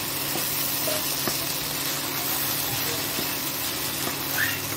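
Soaked sabudana (tapioca pearls) sizzling in hot oil in a non-stick kadhai while being stirred with a spoon, a steady frying hiss with a few faint clicks of the spoon against the pan.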